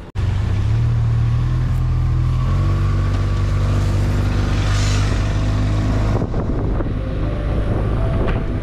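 Motorcycle engine running while riding, a steady engine note that shifts about two and a half seconds in and fades back about six seconds in as other tones come in.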